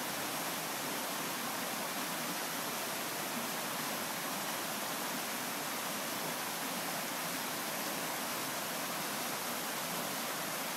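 Creek water flowing and rushing over rocks, a steady, even rush.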